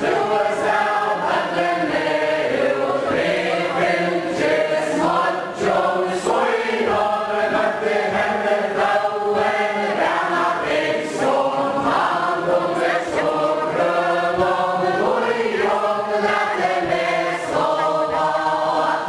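Many voices singing a Faroese chain-dance ballad together, unaccompanied, with the melody moving on from note to note without a break.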